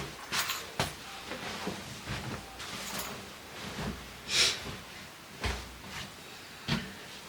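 Scattered knocks, clicks and rustles of household objects being handled, with a short hiss about four seconds in.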